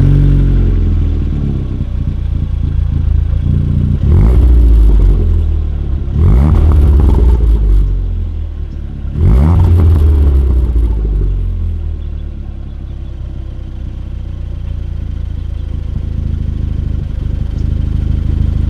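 Ford Fiesta ST's turbocharged four-cylinder engine heard at its twin exhaust tips just after starting. Its start-up flare falls away, then it is blipped three times, each rev rising and falling, and it settles into a steady idle for the last several seconds. It is loud.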